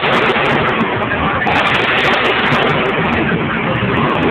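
Monster truck engine running hard as the truck jumps a stack of crushed cars and drives on. It is a loud, steady, distorted wall of noise echoing in an indoor arena.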